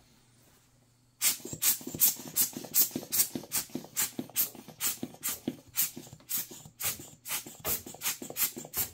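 Rubber-bulb hand air blower squeezed over and over into the computer's fan area to blow out dust, a quick puff of air about two to three times a second, starting about a second in.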